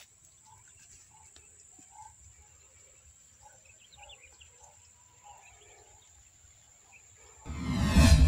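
Faint outdoor ambience with scattered faint bird calls and a thin steady high whine. About seven and a half seconds in, a loud sound effect cuts in suddenly as the subscribe-button animation appears.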